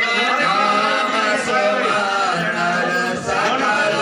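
Male voice singing a devotional chant, continuous and steady in loudness.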